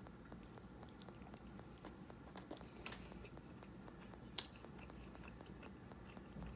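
Faint chewing of a mouthful of fried snapper, with scattered soft crunchy clicks, the loudest about four and a half seconds in.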